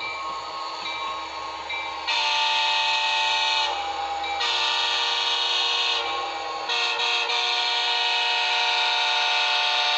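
The recorded diesel horn of a sound-equipped model GP39-2 locomotive blows a multi-note chord in the grade-crossing pattern of long, long, short, long, starting about two seconds in, with the last blast held. Before the horn a bell dings at a steady pace.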